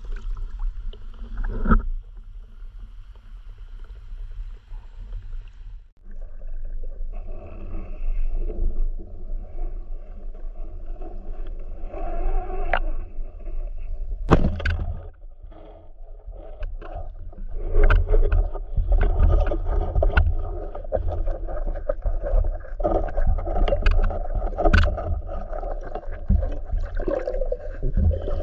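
Muffled water sloshing and rumbling heard through an underwater camera housing as a swimmer moves along a river, with a few sharp knocks against the housing.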